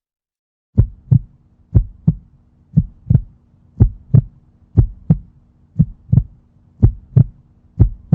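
Heartbeat sound effect: paired lub-dub thumps at about one beat a second, steady and evenly spaced, over a faint low hum.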